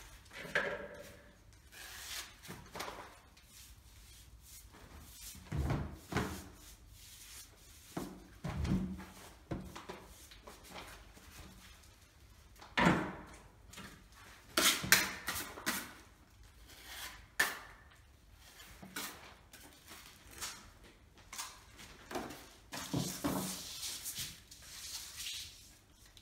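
Scattered knocks, clatters and scrapes of a plasterer's filling knives and tools being handled and set down. Near the end comes a longer crinkling rustle of a clear plastic sheet.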